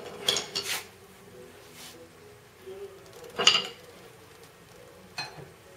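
Metal parts knocking together: a few sharp metallic clanks and clinks, the loudest about three and a half seconds in, as a car's half shaft is worked into the front wheel hub.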